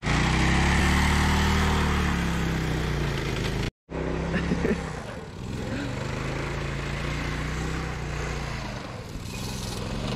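Small engine of a homemade go-kart running as the kart drives on snow. At first it is loud and close, its pitch rising and then falling. After a cut about four seconds in it is more distant, at a steadier pitch.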